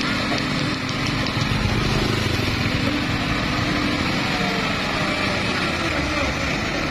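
Diesel engine of a loaded Hino 500 truck running steadily under load as it crawls through deep mud.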